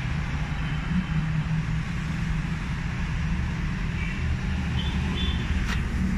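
Car engine idling, heard from inside the cabin as a steady low hum. A single sharp click comes near the end.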